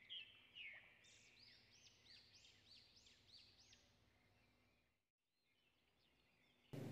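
Near silence, with a faint bird singing a quick run of about seven high, arching notes in the background.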